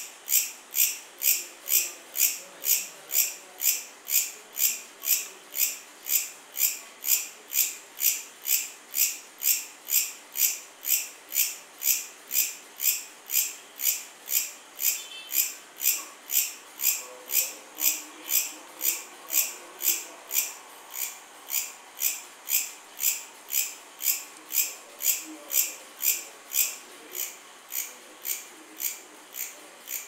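Bush cricket (katydid) chirping in a steady, high-pitched rhythm of about two chirps a second, the chirps a little fainter in the second half.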